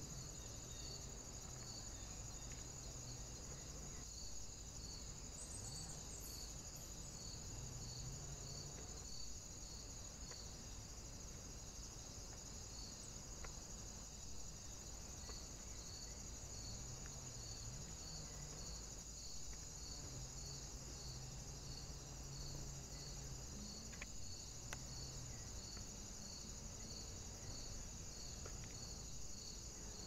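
Faint, steady insect chorus, crickets chirping: a continuous high trill with a regular pulsing chirp about three times every two seconds.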